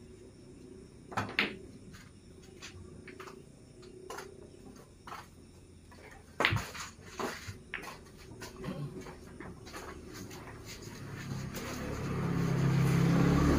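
Pool balls clicking: two quick clicks about a second in, then a sharp crack about six and a half seconds in followed by a few lighter clicks, as the cue strikes and the balls collide. Near the end an engine swells louder.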